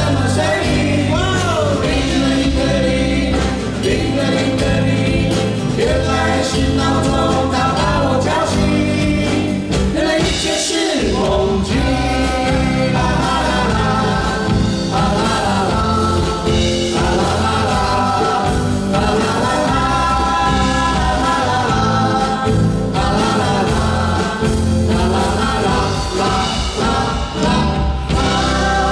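A live band playing a song, with singing throughout over a steady rhythm. The low end drops out briefly about ten seconds in.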